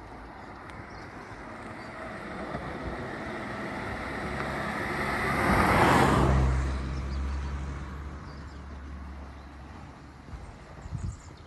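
A car driving past close by: tyre and engine noise swells over several seconds, peaks about six seconds in as it passes, then fades to a low engine hum as it moves away.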